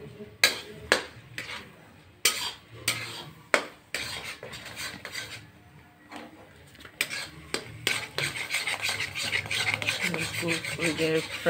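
A metal spatula stirring and scraping scrambled eggs and vegetables around a metal kadhai, with sharp clinks of spatula on pan. The clinks are scattered at first, then from about eight seconds in the stirring turns into fast, continuous scraping.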